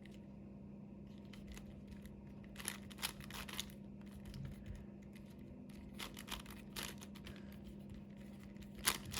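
Plastic 5x5 Rubik's cube layers being turned by hand, giving short flurries of clicking and scraping a few times, over a steady low hum.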